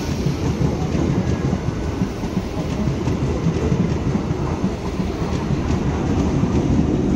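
Eastern Railway electric suburban local train running past close by. Its wheels make a steady rumble on the track, with faint clicks as they cross rail joints.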